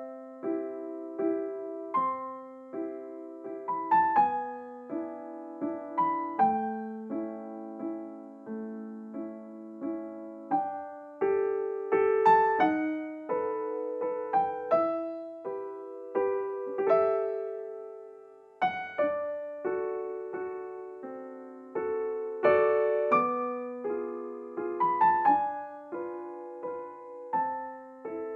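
Solo piano music: a slow piece of single notes and chords, each struck and left to ring and fade.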